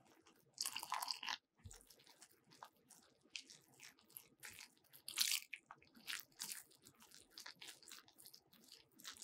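Silicone spatula stirring flour in a glass bowl, mixing the liquid into a shaggy bun dough, with irregular scratchy, crunchy strokes. The loudest strokes come about a second in and again around five seconds in.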